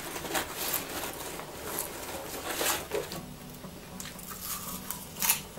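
Hand rummaging in a bag of salted popcorn, the bag rustling in irregular crackles, and popcorn being eaten with soft crunches.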